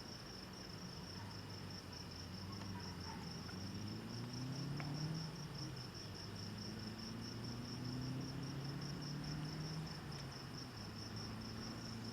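Crickets chirping in a steady, even pulse, about five chirps a second. Underneath, a low drone slides up in pitch several times.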